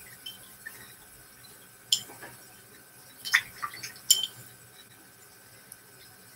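Light clinks of painting tools, a paintbrush knocking against a hard container or palette: one about two seconds in, a quick cluster around three and a half seconds, and another just after four seconds.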